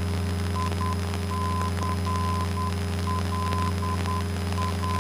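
A Cessna 172N's four-cylinder engine drones steadily, heard through the cockpit headset intercom. Over it, a high tone beeps on and off in short and long beeps like Morse code, typical of a radio navigation beacon's identifier.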